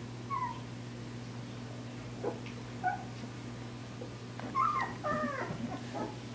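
Newborn puppies whining and giving little howls: a few short, high squeaks, then about four seconds in a run of overlapping rising-and-falling whines from several pups at once. A steady low hum runs underneath.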